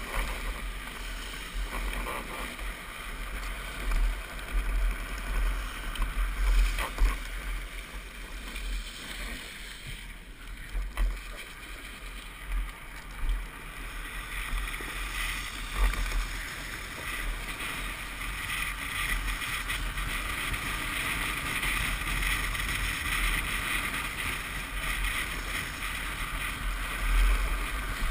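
Wind buffeting a helmet-mounted camera's microphone on a drift trike rolling fast down a paved road, with the steady hiss of its hard plastic rear wheels rolling and sliding on the asphalt. The hiss grows stronger over the second half, with a few short knocks along the way.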